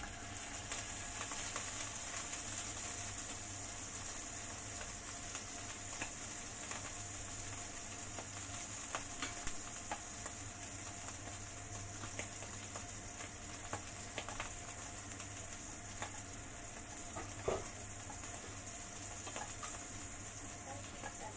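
Marinated milkfish (bangus) frying in hot oil in a wok: a steady sizzling hiss with scattered small crackles and pops. A single sharper click stands out about seventeen seconds in.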